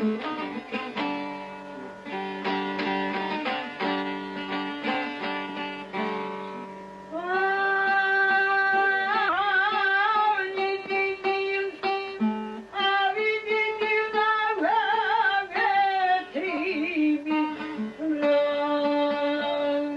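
A plucked string instrument plays a melody alone, then about seven seconds in a man's voice comes in over it, singing loudly with a wide vibrato.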